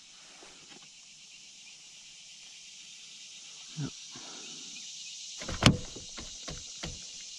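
Handling knocks on a plastic fishing kayak as a fish is held on a measuring board: a dull thud nearly four seconds in, then a sharp knock about a second and a half later, the loudest, with a few lighter clicks after it. A steady high insect hiss runs underneath.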